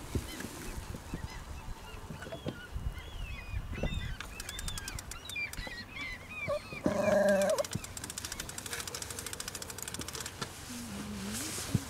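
Birds calling: a flurry of short, pitch-bending chirps, then one loud honk lasting just under a second, about seven seconds in. A fast, even ticking follows.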